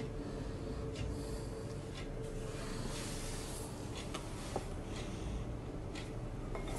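Faint, scattered small clicks and taps as biscuits are handled and laid in plastic food tubs, over a steady low room hum.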